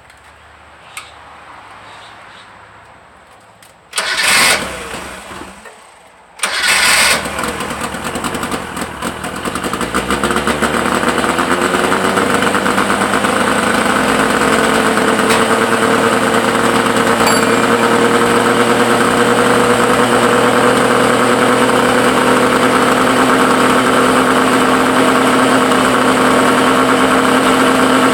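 Suzuki SS20 Cervo's engine being started: a first attempt about four seconds in dies away, then it catches on the second try a couple of seconds later and settles into a steady idle. The car has an exhaust leak.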